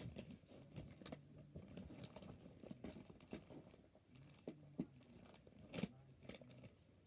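Near silence broken by faint scattered clicks and rustles, as of things being handled, with a few sharper ticks in the second half.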